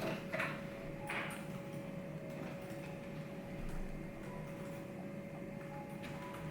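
Study room ambience: a steady faint hum with a few soft rustles near the start and scattered small taps and ticks.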